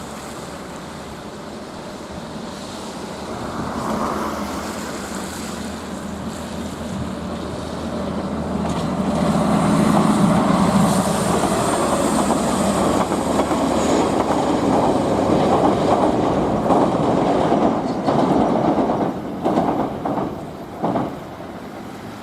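Kumoya 443 track-inspection train passing on the rails. It grows louder to a peak around the middle, then fades with a few clacks of the wheels near the end.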